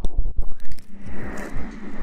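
Close-miked ASMR rustling and scraping with scattered clicks and soft thumps.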